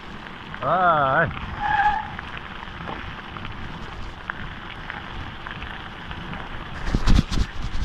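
Mountain bike rolling downhill on a gravel track: a steady rushing noise of tyres on gravel and wind. About a second in there is a brief wavering call, and near the end a quick cluster of loud knocks as the bike jolts over the rough surface.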